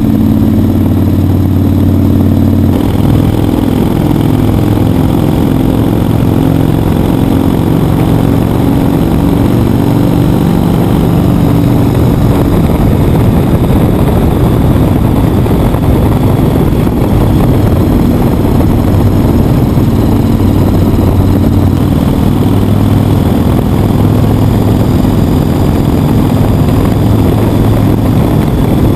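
Yamaha XV1600 Wild Star V-twin cruiser running steadily at road speed, its engine note under a heavy rush of wind on the microphone.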